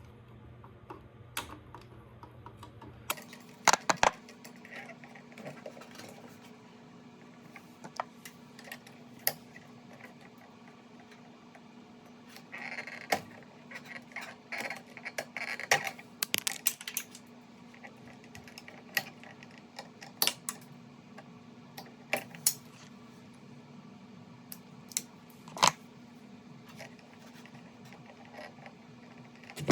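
Hand tools and electrical wire being handled while splicing a neutral pigtail: scattered sharp clicks and light metallic taps at irregular intervals, busier in the middle, over a faint steady hum.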